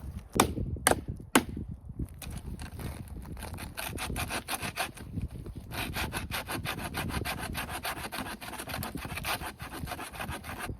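Saw blade on the back of a machete cutting dead wood in quick back-and-forth strokes, after three sharp knocks in the first second and a half.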